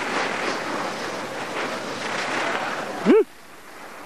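Skis scraping and hissing over icy packed snow, with wind rushing on the microphone. About three seconds in comes a short rising-then-falling yelp from a voice, the loudest moment, and then the rushing noise drops off suddenly.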